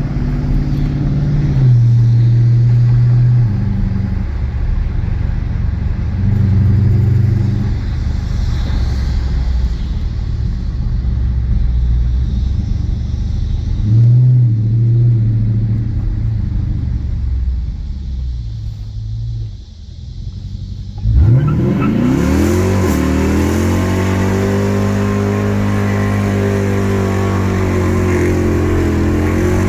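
2017 Dodge Charger R/T's 5.7-litre HEMI V8 running with several brief rises in revs. About two-thirds of the way in the sound drops away, then the revs climb sharply and settle into a steady drone.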